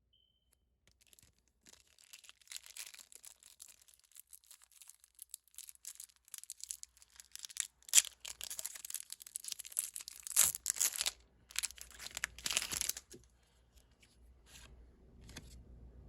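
Foil Pokémon booster pack wrapper crinkling as it is handled and then torn open, with several loud, sharp rips in the second half before it goes quieter.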